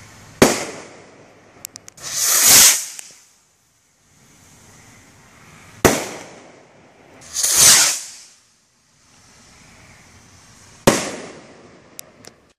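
Consumer fireworks going off: three sharp bangs about five seconds apart, the first two each followed about two seconds later by a rushing hiss that swells and fades over about a second. A few small cracks come just before the first hiss and near the end.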